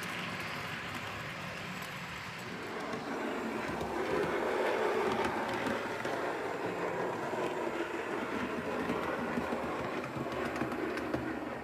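OO gauge model diesel locomotive running along the layout's track, a steady rumble of motor and wheels that grows louder about three seconds in as the train comes close.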